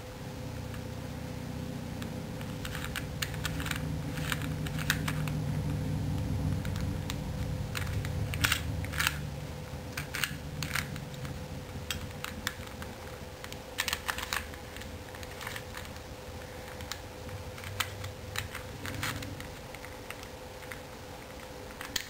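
Plastic pieces of a hand-built shape-mod puzzle made from a 3x3x2 Rubik's domino, clicking and clacking as its layers are turned by hand, in irregular runs of sharp clicks. A low steady hum lies underneath, stronger in the first half.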